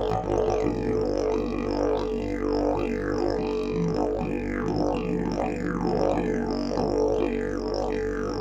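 Fiberglass triple-slide didgeridoo played as a steady drone at one pitch, its overtones sweeping up and down in a regular rhythm.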